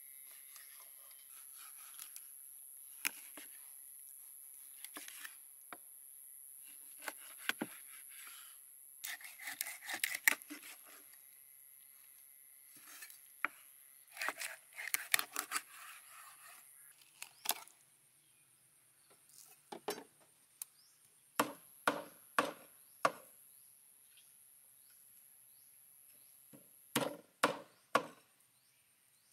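Kitchen knife cutting a whole fish on a wooden cutting board: scraping slices through the scaled skin, and sharp knocks of the blade on the board, coming in quick runs of about two a second in the second half.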